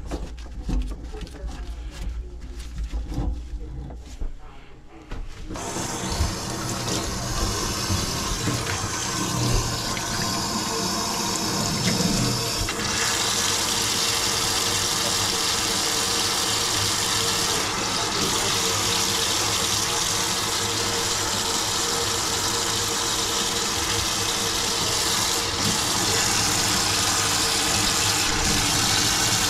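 Kitchen faucet running a steady stream into a stainless steel sink and down the drain; partway through, the water gets louder and brighter. Before the water starts there are a few knocks and clatter.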